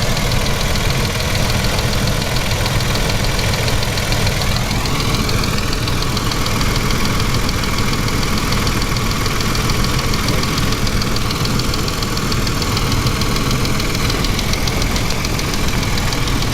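Mercedes-Benz M112 V6 petrol engine idling steadily with a knock. A brief rising tone comes about five seconds in.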